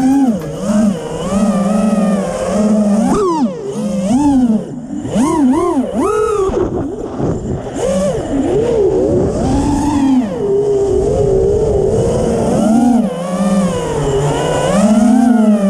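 Five-inch FPV quadcopter's brushless motors (T-Motor F40 III 2600 Kv spinning three-blade 5-inch props) whining, their pitch swinging up and down rapidly and repeatedly with the throttle as the quad carves turns. A low rumble runs underneath.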